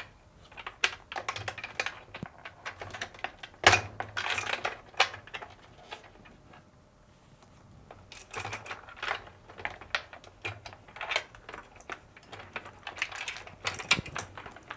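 Wiring harness wires being pulled out of plastic retaining clips on a washing machine: irregular small clicks, snaps and rustling of wire against plastic, with a sharp snap a little under four seconds in and a quieter pause around the middle.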